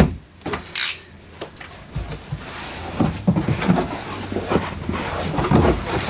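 Flaps of a heavy double-walled cardboard shipping box being pulled open and folded back: cardboard scraping, rustling and knocking, with a short sharp scrape about a second in.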